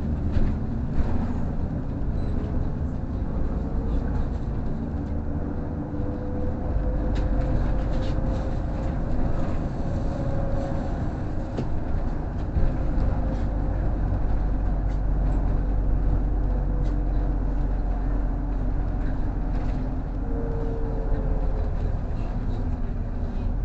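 City bus driving between stops, heard from inside the passenger cabin: a steady engine rumble with road noise. A faint whine rises slowly in pitch about four seconds in, and the low rumble grows heavier about seven seconds in.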